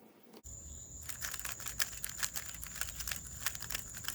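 3x3 Rubik's cube being turned rapidly by hand, a quick run of plastic clicks and rattles as the layers snap through 90-degree turns.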